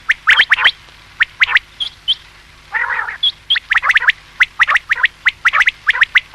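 Common quail calling: quick groups of short, sharp, rising high notes, with a lower buzzy call about three seconds in. This is the kind of quail call played to lure quail for hunting.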